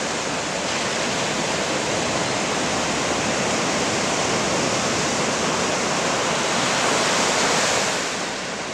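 Small waves breaking and washing up the beach, a steady rushing that swells a little about seven seconds in and eases just before the end.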